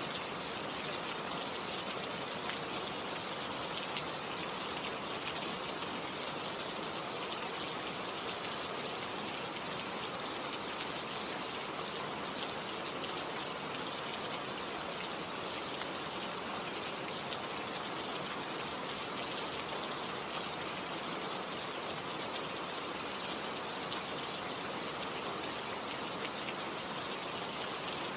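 Steady rainfall, a dense even hiss of drops with fine scattered patters on a surface.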